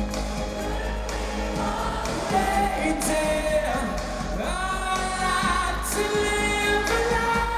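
A live rock band plays with sung vocals, heard from the audience of an arena concert. One vocal line slides upward in pitch about halfway through.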